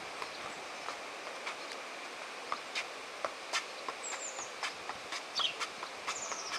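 A football being juggled with the feet: irregular light taps of the ball on the foot, about one or two a second. A bird gives a short falling chirp twice, near the middle and near the end, over steady outdoor background noise.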